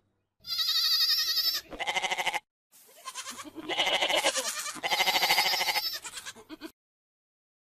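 A woman's high-pitched, wavering squeals and pulsing shrieks of laughter, in two bursts with a short gap between them, cutting off abruptly near the end.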